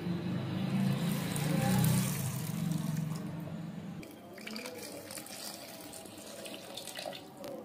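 Milk poured in a steady stream from a plastic bottle into a plastic mixer-grinder jar, splashing against the jar. A low hum runs under the first half.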